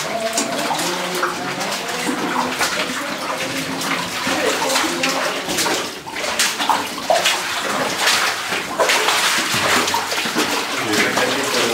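Several people walking in rubber boots through shallow water on a stone tunnel floor: a steady run of splashing, sloshing footsteps.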